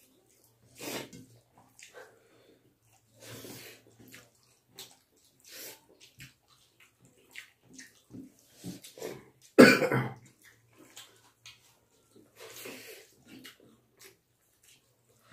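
Close-up eating sounds from two people eating rice and chicken by hand: wet chewing and mouth smacks with fingers squelching rice on steel plates, coming in short irregular bursts. A louder, sharper burst comes about ten seconds in.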